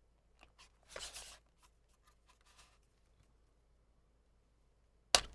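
Faint handling of a camera lens: a soft plastic scrape about a second in, a few tiny ticks, then one sharp click near the end as the lens's plastic rear cap is twisted off.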